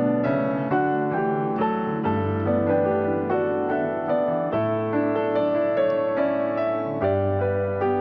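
Gentle piano music: a keyboard melody of evenly spaced notes over low bass notes that change every couple of seconds.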